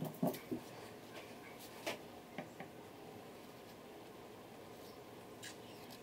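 Handling noise: light clicks and taps of a CD and a clear plastic tube being moved and set down on a clear plastic sheet. A cluster of taps comes in the first half-second, a few more about two seconds in, and a single tick near the end.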